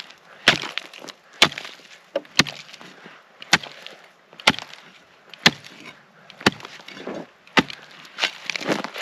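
Hand chopping into thick pond ice: eight hard, single blows about a second apart, then quicker, lighter chipping and crunching near the end. The hole is not yet through to water.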